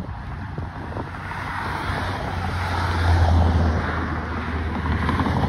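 Wind rushing over the microphone during a bike ride, with a motor vehicle's low hum swelling to its loudest about halfway through and then easing off.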